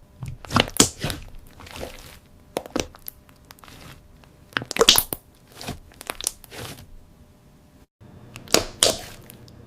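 Thick, glossy slime squeezed and pressed by hand, giving irregular sharp clicks, pops and wet crackles, with a brief drop-out about eight seconds in.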